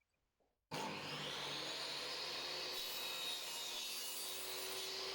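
Table saw running and cutting a wooden block; the sound starts abruptly just under a second in and then holds steady.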